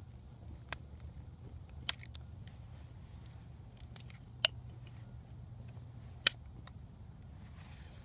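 Victorinox Trekker's lever-type can opener cutting around the lid of a steel can: sharp metallic clicks as the blade bites through the tin, four loud ones and several fainter at irregular spacing.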